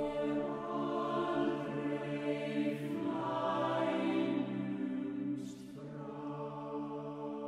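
Chamber choir singing unaccompanied in slow, sustained chords. The sound swells through the middle, then, after a brief hiss of a sung consonant, settles to a quieter held chord.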